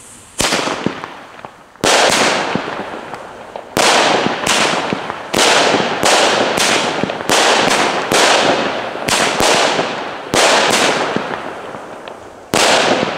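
Pyroland Brokat Garden fireworks battery (cake) firing: about sixteen sharp shots at uneven spacing, each followed by a fading crackle as the brocade stars burn out.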